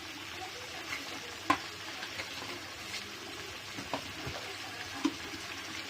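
Onion-tomato masala sizzling steadily in hot oil in a pan while it is stirred, with a few short taps of a utensil against the pan, the sharpest about a second and a half in.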